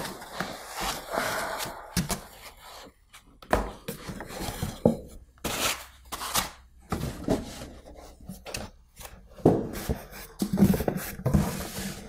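Foam packing inserts and a cardboard box being handled while a product is unpacked: irregular rubbing, scraping and rustling, with a few dull knocks.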